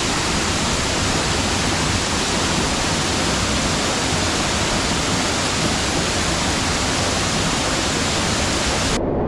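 Steady, loud rush of falling water from a waterfall, with no distinct splashes; the hiss cuts out suddenly near the end.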